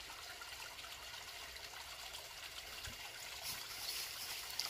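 Shallow mountain stream trickling over rocks into a small pool, a faint, steady babble that grows a little louder in the last second or so.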